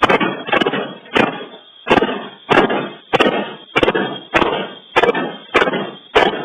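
A door being struck hard over and over, about eleven heavy blows at a steady pace of a little under two a second: an attempt to batter the door in. Heard through a doorbell camera's thin microphone.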